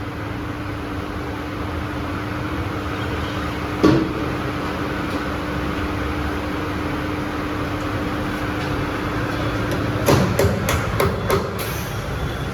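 Tyre-shop work on a car wheel: a machine hums with a steady tone, one sharp knock comes about four seconds in, then the hum stops near the end and a quick run of five or six sharp knocks follows.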